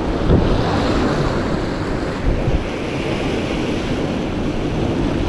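Sea surf washing and breaking against a rocky shore, a steady rushing noise, with wind rumbling on the microphone.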